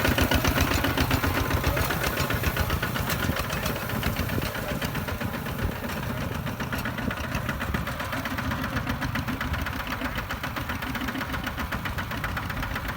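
A two-wheel walking tractor's single-cylinder diesel engine running with a rapid, even knocking chug, a little louder at first and then steady.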